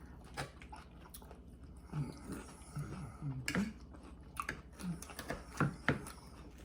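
A person chewing a mouthful of side salad close to the microphone, with scattered crisp crunches and wet mouth clicks.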